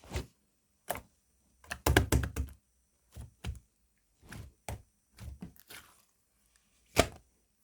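Slime being squeezed and poked by hand, giving a series of short sticky clicks and pops, with a quick run of them about two seconds in and one sharp pop near the end.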